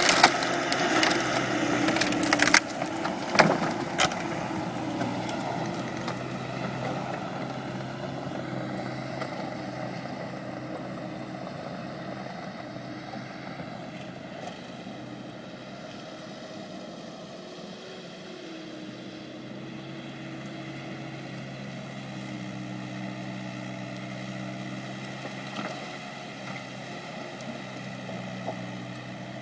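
Bobcat skid steer's engine running steadily under a Faver grapple rake. Scrap lumber cracks and clatters in the grapple in the first few seconds, the loudest part, then the engine runs on alone.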